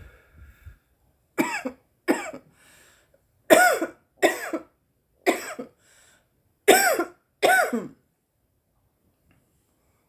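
A woman coughing seven times, mostly in quick pairs, from a lungful of cannabis smoke; the coughing stops about two seconds before the end.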